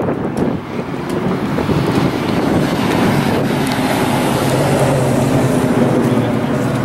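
A 1965 Pontiac GTO's 389 V8 idling steadily at the tailpipes, with wind on the microphone.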